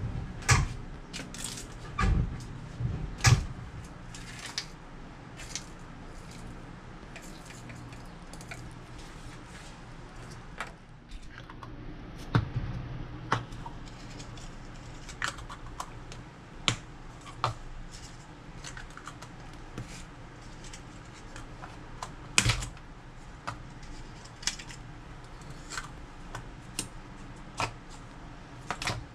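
Clear plastic lids being pressed and snapped onto small plastic portion cups, giving many irregular sharp clicks and taps, with a few louder knocks in the first few seconds and again about two-thirds of the way through.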